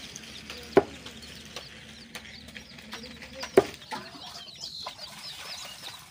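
Hens clucking in the background, with two sharp knocks, one about a second in and one just past halfway. Small birds chirp through the second half.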